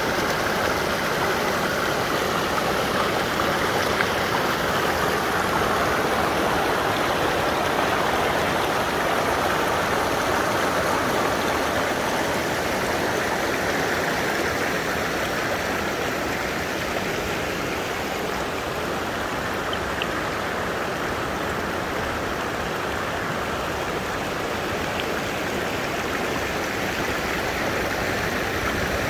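Mountain valley stream flowing steadily.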